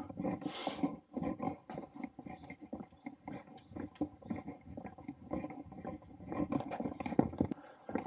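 Footsteps of a hiker walking on a wooden boardwalk: a run of irregular knocks and thuds, with a brief hiss near the start.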